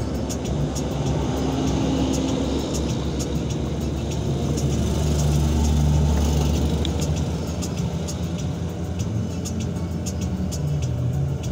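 Heavy truck's cab noise: a steady low engine drone and road rumble while driving downhill, swelling louder around the middle as an oncoming truck passes close alongside.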